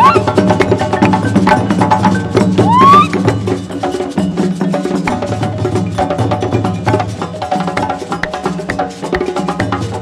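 West African percussion ensemble playing live: drums struck with sticks and hands in a fast, dense rhythm, with a short rising glide in pitch about three seconds in.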